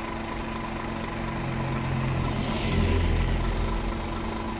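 Diesel engine of a parked Scania S500 truck idling steadily close by, while a van's engine approaches and drives past, loudest about three seconds in.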